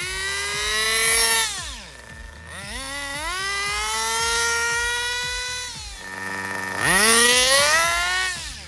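Glow-fuel nitro engine of a 1/10 Kyosho Mantis RC car revving. Its pitch climbs steeply under full throttle, holds high, then drops off as it lets off. This happens three times in quick succession: acceleration runs on pavement.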